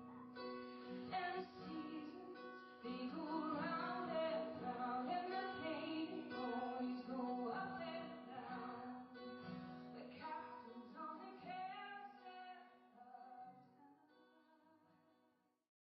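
Music: a woman singing over a plucked acoustic guitar and a steady held low note, fading out near the end.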